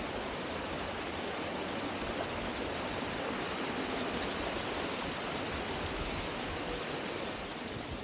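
Steady rushing hiss of water from a waterfall and rocky creek, even and unbroken.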